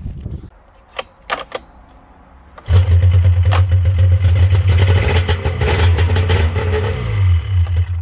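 Polaris 440 Pro X's fan-cooled two-stroke engine catching about three seconds in and running for about five seconds on brake cleaner sprayed down its cylinders, then cutting out near the end. A few light clicks come before it fires.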